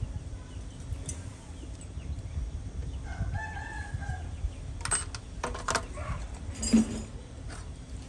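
A rooster crows once, about three seconds in. Sharp clicks follow, then a loud knock near the end, over a steady low rumble.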